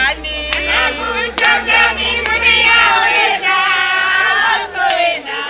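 A crowd of people singing and cheering together, several voices holding notes at once.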